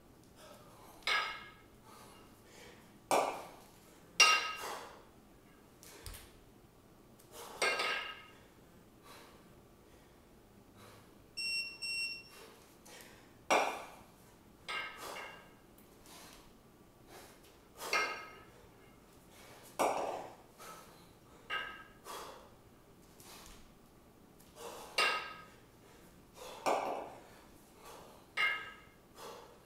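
A pair of 20 kg kettlebells knocking together in long cycle. Sharp, ringing metallic clinks come every couple of seconds as the bells are cleaned to the rack and jerked overhead.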